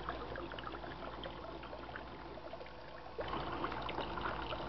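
Shallow water trickling and lapping close by, with small crackling splashes that get louder about three seconds in as a hand moves in the water.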